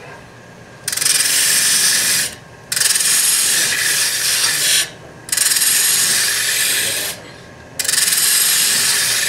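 Turning tool cutting into a spinning MDF disc on a wood lathe: four scraping cuts of about two seconds each, with short pauses between them.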